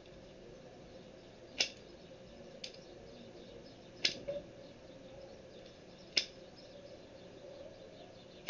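A small knife cutting and trimming a piece of rubber by hand, shaping a bicycle pump seal, with several sharp clicks about one to two seconds apart as the blade snaps through.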